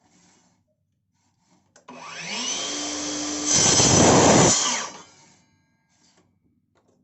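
A small electric power tool starts up with a rising whine, runs steadily, then gets much louder for about a second as it works into the piece, and winds down.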